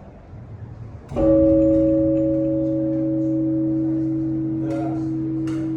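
A large church bell is struck once about a second in, and its deep tone rings on, fading slowly. Two short clicks come near the end.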